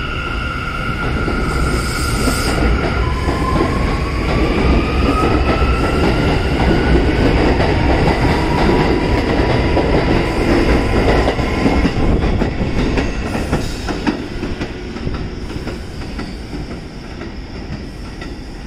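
R179 subway train pulling out of the station. A whine rises in pitch as it gathers speed, over the rumble and clatter of its wheels on the rails. The sound is loudest about halfway through, then fades as the train moves off.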